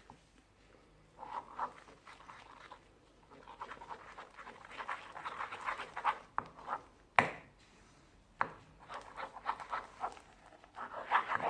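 Sticky, crackly squelching of a glue-based slime mixture being stirred and worked in its container, in several spells, with two sharp knocks about seven and eight and a half seconds in.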